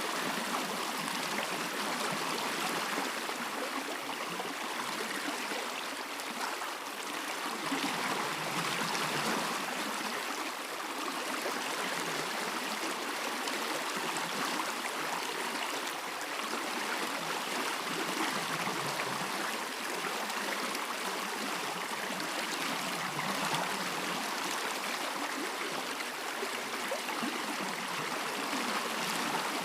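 A stream flowing steadily, its water rushing and trickling over rocks in an even wash of sound.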